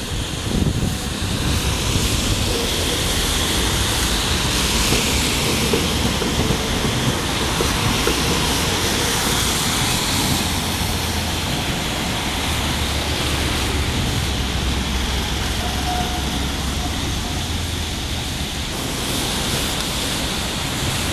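Steady street noise of cars passing on a wet road, with Toden Arakawa Line trams running along the track beside it. It is an even hiss and rumble throughout, with no horn, bell or single loud event standing out.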